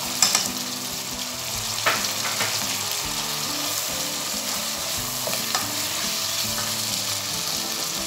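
Diced onion and small chicken pieces sizzling in butter and oil in a saucepan, the pan's water cooked off so they are frying. A wooden spoon stirs them, knocking against the pan a few times.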